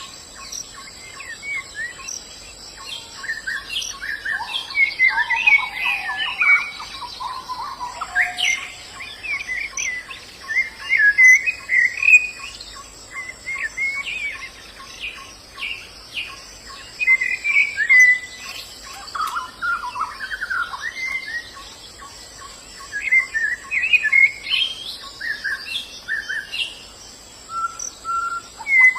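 White-eyes (pleci) chirping and twittering, with bursts of quick high calls throughout, over a steady high buzz of insects.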